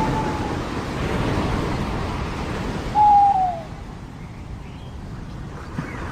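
Surf washing on a beach, thinning after a few seconds, with a bird's clear single call about three seconds in: one note gliding downward, the loudest sound here. A fainter, similar short note comes right at the start.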